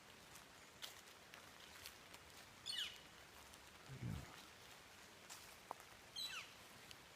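An unidentified bird's call, given twice about three and a half seconds apart: each a quick, slightly buzzy call sweeping down from high to lower pitch. A low thump falls between the two calls.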